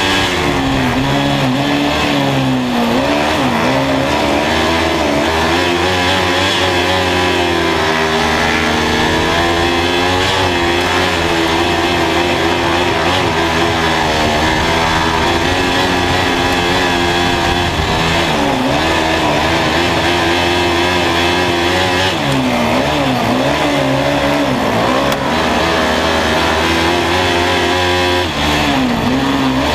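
Onboard sound of a kart cross's Honda 500 cc engine at racing speed, the revs rising and falling over and over, with brief dips a few times where the throttle is lifted.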